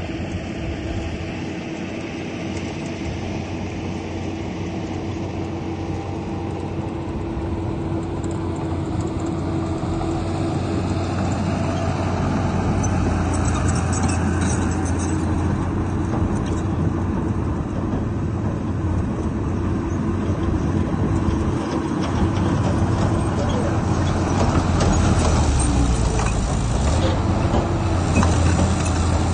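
Heavy diesel earth-moving machinery running, growing gradually louder, with clanking and clatter mixed in over the second half.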